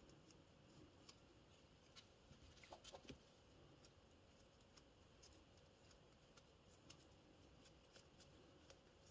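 Near silence, with a few faint clicks and taps, a small cluster of them about three seconds in.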